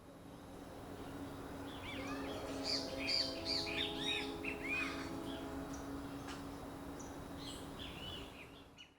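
Small birds chirping in quick, repeated arched notes, busiest in the middle and again near the end, over a steady low hum. The whole fades in and fades out again.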